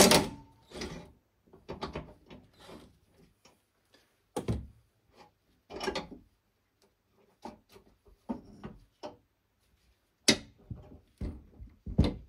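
Irregular clunks and knocks of metal mower-deck parts and tools being handled during reassembly. A loud clank right at the start rings briefly, then come scattered lighter knocks and a few sharper hits about four, six, ten and twelve seconds in.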